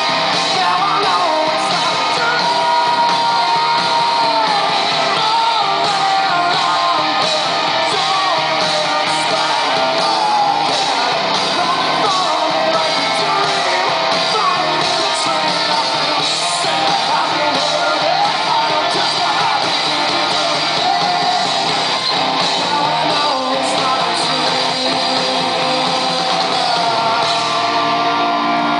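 Live rock band playing loudly: electric guitars and drums, with a male singer. It is heard from among the audience in a large hall.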